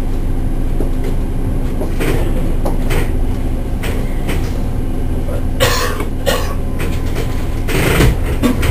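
Keihan 8000-series electric train heard from inside the driver's cab as it moves slowly in an underground station: a steady low rumble and hum, broken by a few short noisy bursts, the loudest about six and eight seconds in.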